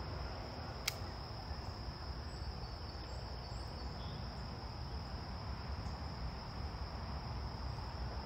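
Insects trilling in one steady, unbroken high tone over a low outdoor rumble, with a single sharp click about a second in.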